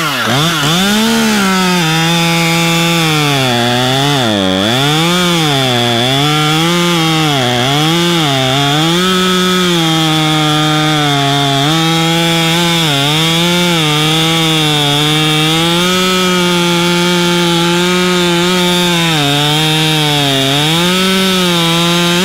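Husqvarna T540 XP Mark III top-handle chainsaw cutting through a log over ten inches thick. Its small two-stroke engine runs at high throttle throughout, the pitch dipping and recovering again and again as the chain bites into the wood.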